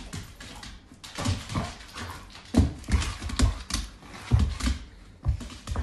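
A dog's paws thumping and clattering on a hardwood floor as it leaps and spins, in a string of irregular thuds.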